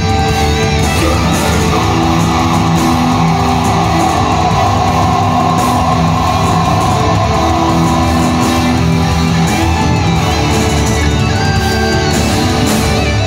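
Live heavy metal band playing loud, with distorted electric guitars and bass guitar.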